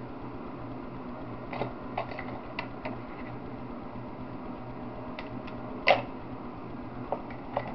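Steady low background hum with scattered light clicks and taps as small wired parts and electrical tape are handled, the loudest click about six seconds in.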